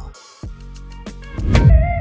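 Electronic outro music: a short whoosh at the start, a low bass drone, then a heavy bass hit about one and a half seconds in that leads into a held synth chord.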